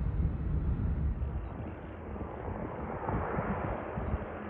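Low rumble of a distant jet airliner climbing away, then a twin turboprop airliner on approach, its engine and propeller noise a hiss that grows louder as it comes in.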